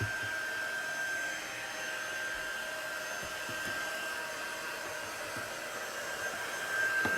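Small handheld dryer blowing steadily, a quiet, even rush of air with a thin high whine, as it dries freshly applied chalk paste.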